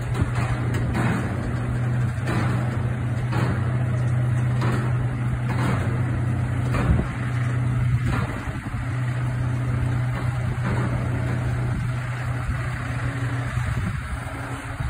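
Scania heavy-haulage truck's diesel engine running at a steady low pitch as the truck and its long trailer pass slowly, with a soft regular pulse about once a second.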